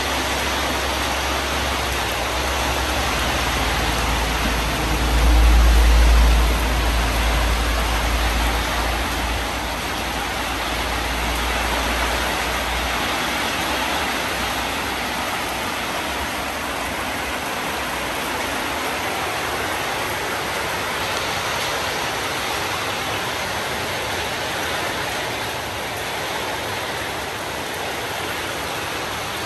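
Steady rain, an even hiss throughout. For about the first dozen seconds a deep rumble runs underneath, swelling briefly around six seconds in.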